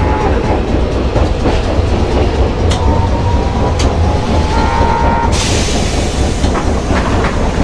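Hankai Tramway Mo161 tram running, heard from inside the cab: the steady low rumble of its nose-suspended traction motors and gearing, with rail-joint clicks. A whining tone comes in about three seconds in, and a short burst of hiss follows about five seconds in.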